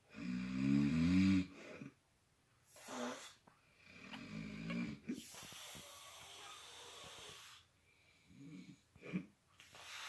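A man snoring heavily in his sleep: a loud, wavering pitched snore at the start and another around four seconds in, with long breathy, wheezing breaths between and two smaller snorts near the end.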